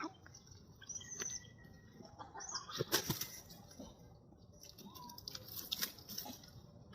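Faint, scattered short animal chirps and squeaks, some gliding in pitch, with a few sharp clicks between them.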